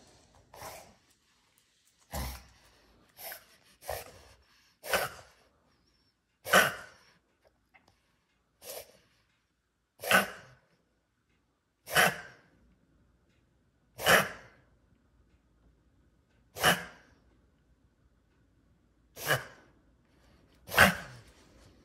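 Dog coughing badly in a long fit: about a dozen short, harsh coughs, close together at first, then a second or two apart.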